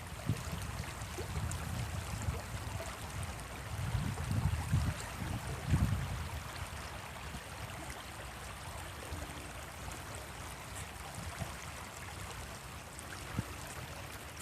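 Stream water flowing steadily, with a few low rumbles about four to six seconds in.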